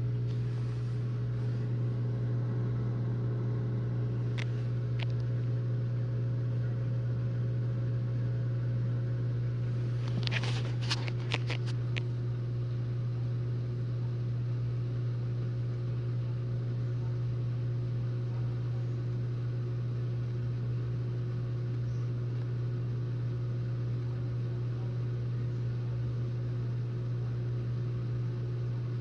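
Whirlpool dishwasher running with a steady low hum as it changes over from the end of its normal wash to the heat-dry stage. There are a couple of light clicks about four seconds in and a short cluster of clicks about ten to twelve seconds in.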